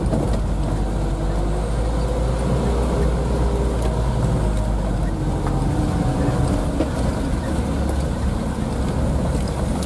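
Isuzu Elf minibus's diesel engine running as it drives along a rough, broken road, heard from inside the cab: a steady low rumble with engine tones that slowly rise and fall.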